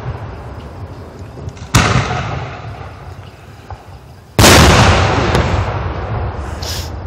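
Aerial fireworks shells bursting: two loud booms, about two seconds apart and the second the bigger, each followed by a long rumbling echo that slowly fades. A short high hiss comes near the end.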